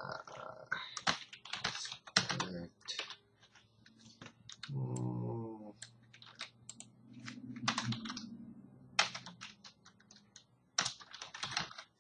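Typing on a computer keyboard: irregular runs of key clicks with short pauses between them, and a short low hum about five seconds in.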